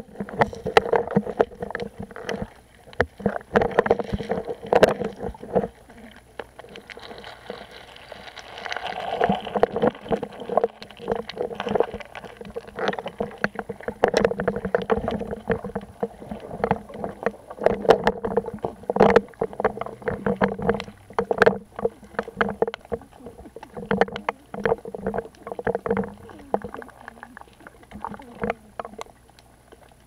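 Muffled sea water heard through an underwater camera's housing: sloshing, with many irregular clicks and knocks.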